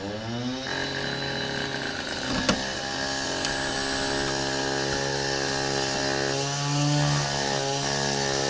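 Loud concrete saw spinning up to speed, its whine climbing steeply, then running steadily, with its pitch dipping briefly near the end.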